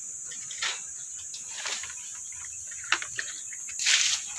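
Steady high-pitched insect drone, with scattered crackles and rustles of leaves; the loudest rustle comes near the end as a banana leaf brushes close by.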